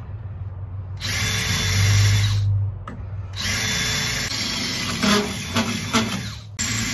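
Cordless drill boring rivet holes through two stacked pieces of aluminum angle, in two long runs with a short pause about three seconds in. There are a few sharp clicks near the end.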